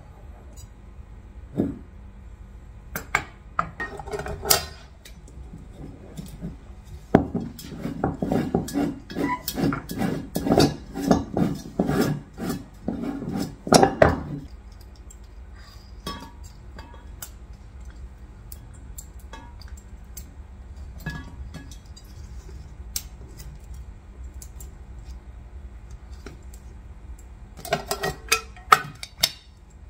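A metal camping pan and a folding remote-canister gas stove being handled and packed: scattered clinks, a dense run of clattering and rattling through the first half, then a quieter stretch with the odd click, and a short flurry of clinks near the end.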